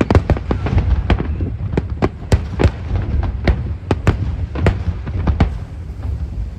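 Fireworks bursting in quick succession: a rapid run of sharp bangs over a continuous low rumble of echoing booms, thinning out near the end.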